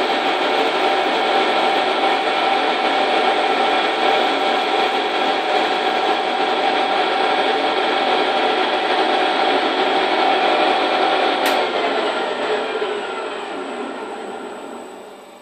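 Vertical milling machine running with an offset boring head cutting a bearing housing bore in a metal bar: a steady whirr with several steady tones. About three-quarters of the way in there is a click, and the spindle winds down and fades.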